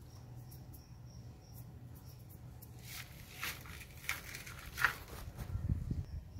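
Faint steady low hum with faint high chirps repeating every second or so, then a few brief rustles and scrapes about halfway through and a cluster of low thumps near the end, as the phone is handled and moved among the leafy pepper plants.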